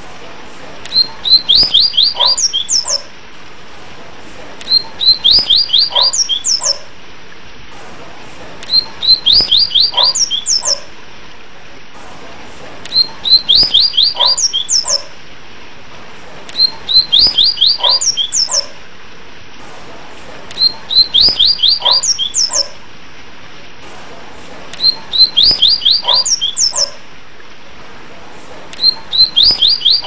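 Yellow-bellied seedeater (coleiro-baiano) singing its 'tui tui' whistled song: a phrase of quick rising high whistles, about two seconds long, repeated every four seconds or so over a steady hiss.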